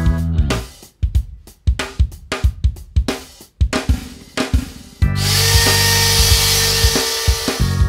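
Background music with a drum beat; about five seconds in, an electric wood router (a DeWalt compact router) starts suddenly and runs with a high-pitched whine and hiss for about two and a half seconds.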